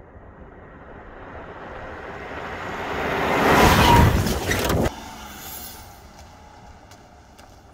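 New Land Rover Defender towing an off-road caravan drives toward and over a microphone at ground level on sand and gravel. The engine and tyre noise builds steadily to a loud rush as the vehicle passes overhead, then cuts off suddenly about five seconds in. Quieter outdoor ambience with a few faint clicks follows.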